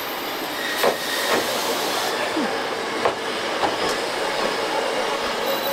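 Vintage 1963-built electric train, a Choshi Electric Railway 2000-series unit, rolling slowly into the station. Its wheels knock several times over bolted rail joints above a steady rolling noise.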